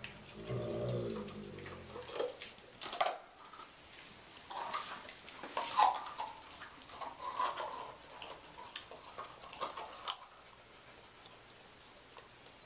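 Dogs licking and nosing an empty plastic pudding cup: irregular wet licking and snuffling, with a few sharp clicks of the plastic cup. A short low drawn-out sound comes at the start.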